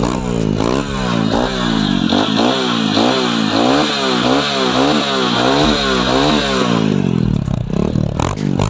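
Honda CRF150's single-cylinder four-stroke engine revving through a homemade exhaust pipe, the throttle blipped up and down about twice a second.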